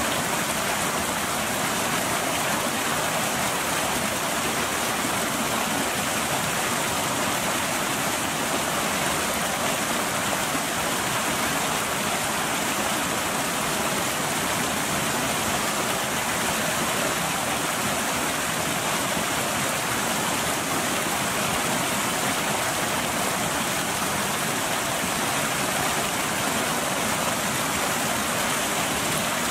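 Water pouring over a small waterfall into a foaming pool, making a steady, unbroken rush.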